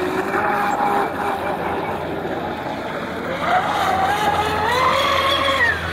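High-pitched whine of a large 12S electric RC catamaran's motor and propeller running on the water, climbing in pitch as the boat speeds up from about three and a half seconds in, then dropping just before the end.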